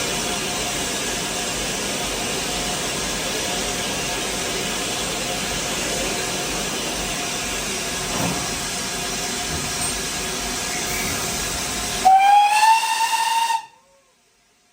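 Steam locomotive giving off a steady hiss of steam, then a short whistle near the end that rises slightly in pitch before it cuts off abruptly.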